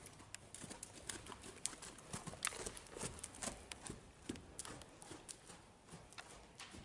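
A horse trotting on sand arena footing: soft, irregular hoofbeats with sharp clicks, several a second.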